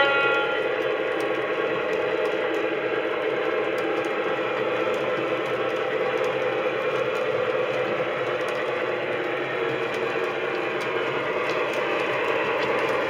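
Lionel FT diesel model train running steadily around a three-rail O-gauge track with its passenger cars: an even mechanical whir from its twin motors and gearing and its wheels on the rails. The tail of a horn blast cuts off right at the start.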